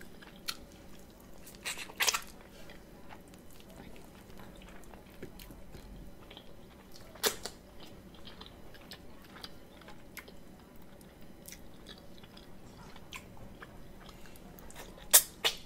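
Close-miked eating of neck bones: chewing and biting meat off the bone, with soft wet mouth sounds. A few short sharp clicks and smacks come through, a couple in the first two seconds, one around seven seconds in, and two close together near the end.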